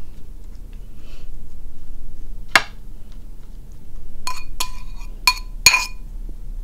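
Metal spoon clinking against a white ceramic bowl while scraping out salad: one sharp tap a little over two seconds in, then four ringing clinks in quick succession near the end.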